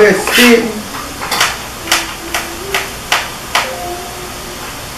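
Kitchen knife chopping green bell pepper on a plastic cutting board: sharp knocks of the blade against the board, about two to three a second. A short hum is heard near the start.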